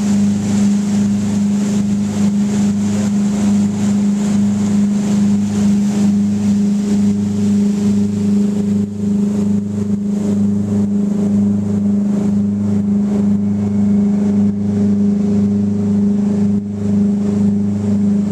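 Charter fishing boat's engines running steadily under way: a loud, constant drone with a regular pulsing beat underneath.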